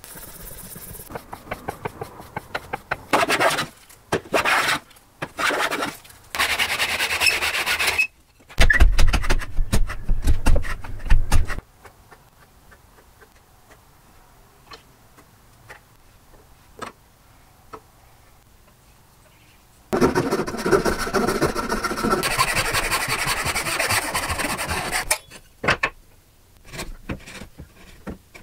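Steel plane parts lapped by hand: repeated back-and-forth strokes of metal rubbing on an abrasive, flattening them. A quieter stretch in the middle holds a few light taps, and a second long spell of steady rasping follows near the end.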